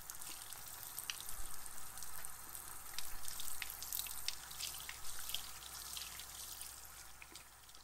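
Water running from a faucet into a sink over hands lathering a bar of soap, with splashing and drips. It fades out near the end.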